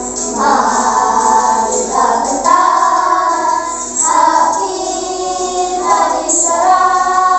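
A group of children singing a song together in unison, in held notes and short phrases.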